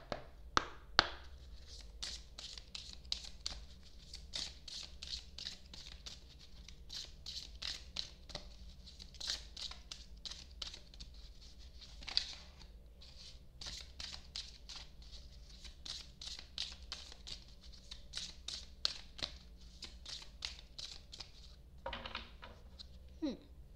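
A deck of large oracle cards being shuffled by hand: a steady run of soft card slaps and riffling, a few strokes each second, with a couple of louder snaps about a second in.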